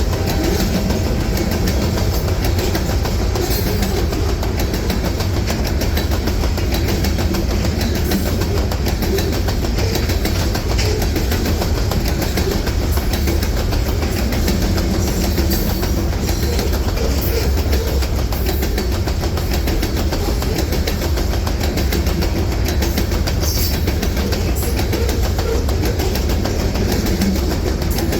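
Freight train rolling past at steady speed, its wheels clacking over the rails.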